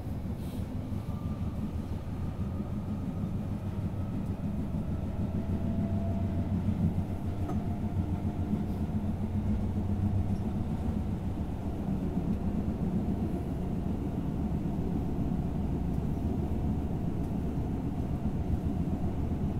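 Tokyo Metro Yurakucho Line subway train running through the tunnel between stations, heard from inside the car: a steady low rumble of wheels on rails, with a faint motor whine rising slightly in pitch.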